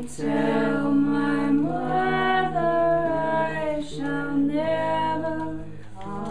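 Wordless singing: voices hold long notes in harmony, changing pitch every second or so, over a steady low hum that steps down in pitch a little past halfway.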